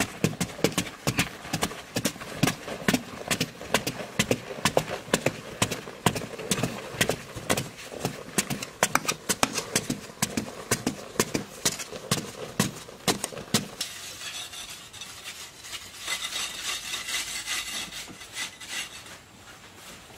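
A metal blade chopping into packed clay soil in a rapid, regular series of strikes, about two or three a second. About two-thirds through the strikes stop, giving way to a steadier scraping of loose dirt being swept by hand.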